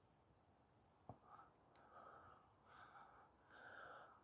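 Near silence outdoors, with a few faint, short, high bird chirps and a soft rustle.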